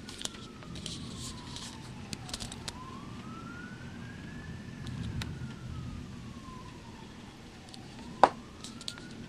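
A siren wailing slowly up and down, about one rise and fall every five seconds, over a steady rain-and-storm hiss. Scattered small ticks and one sharp tap near the end.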